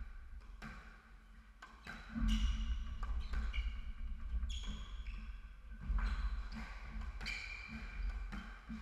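Squash rally: a string of sharp smacks as the ball is struck by racquets and hits the walls, with short shoe squeaks and thudding footfalls on the wooden court floor.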